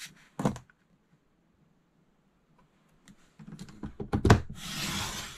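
Paper trimmer being worked: a knock, then clicks and a loud thump as the sheet is set against the guide, followed by a steady scratchy hiss as the sliding blade runs down the rail, cutting through the paper.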